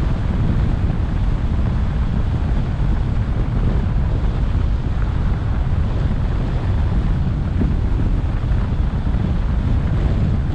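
Steady low rumble of wind buffeting the microphone of a roof-mounted action camera on a moving car, mixed with road noise.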